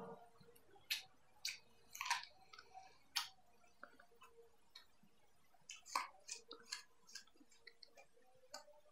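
A person chewing apple, with scattered crisp crunches spread irregularly over several seconds and quiet gaps between them.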